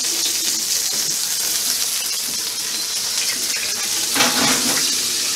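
Two New York strip steaks sizzling steadily in oil in a hot cast iron skillet as it is slid into the oven, with light metallic clinks and a brief louder scrape of the pan on the oven rack about four seconds in.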